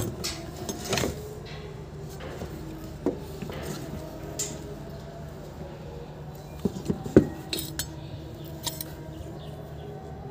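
Parts of a disassembled angle grinder being handled: scattered clicks and knocks as the plastic motor housing and the armature are turned in the hand and touched against each other, loudest at the very start and about seven seconds in, over a steady low hum.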